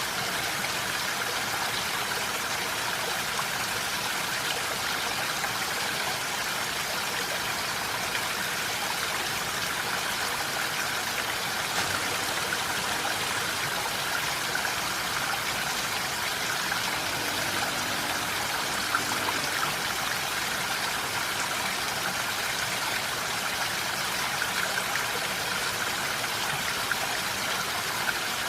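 Steady rain falling, an even hiss of drops with no breaks or single events.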